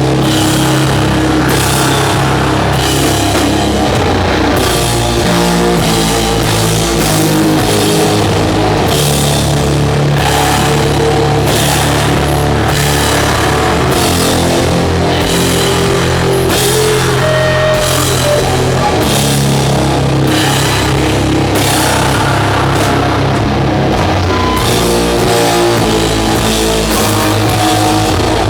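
Doom metal band playing live at full volume: heavily distorted low guitar and bass chords held for several seconds each, over drums with steady cymbal hits.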